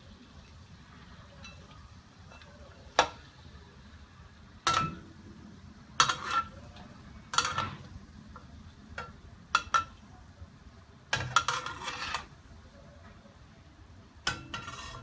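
Chicken pieces frying in hot oil in a wok with a steady low sizzle, while a spatula strikes and scrapes the pan to turn them. There are about a dozen sharp clanks at uneven intervals, with a quick flurry of them a little after the middle.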